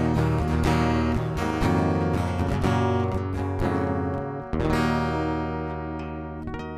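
Acoustic guitar strumming the song's closing bars, ending on a final strummed chord about four and a half seconds in that rings out and slowly fades.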